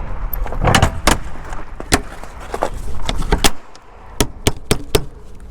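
Crunching footsteps on frozen snow and ice, heard as sharp irregular clicks that settle into a walking rhythm of about three to four steps a second, over a low rumble that drops away about three and a half seconds in.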